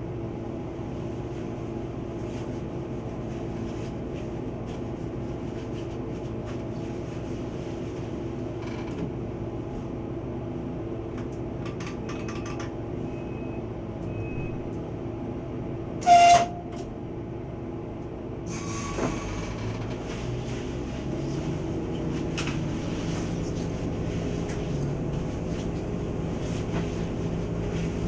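PESA ATR 220 diesel railcar heard from the driver's cab: a steady engine hum, cut about two-thirds of the way through by one short, loud blast. From about 19 s the engine note rises and the running noise grows louder as the railcar pulls harder.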